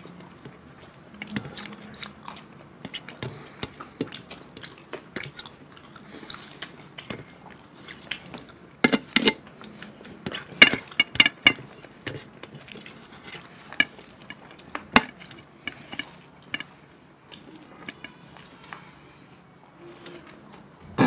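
Eating sounds: chewing and mouth smacks while rice and curry are mixed by hand on steel plates, made up of scattered sharp clicks and taps with a cluster of louder ones about halfway through.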